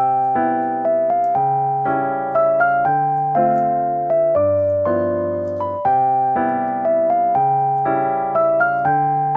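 Background music: a gentle piano melody over chords, with notes changing about twice a second.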